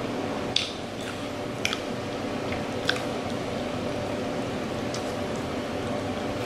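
A person chewing and biting into a chicken wrap close to the microphone, with several sharp wet mouth smacks, over a steady background hum.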